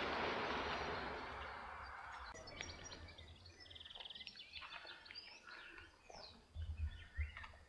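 Outdoor background with a broad rush of noise fading away over the first two seconds. Small birds then chirp in short scattered calls, including one brief trill. A few soft low thumps come near the end.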